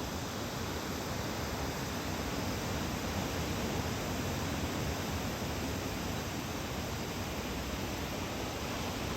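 Steady, even rushing noise of ocean surf breaking under a typhoon swell.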